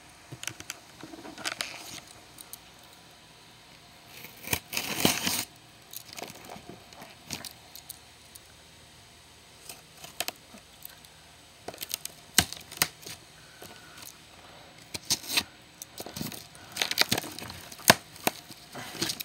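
Packing tape being torn and peeled off a cardboard shipping box, with scattered rustles and knocks as the box is handled. The longest tear comes about five seconds in, and a quick run of tearing and crinkling comes near the end.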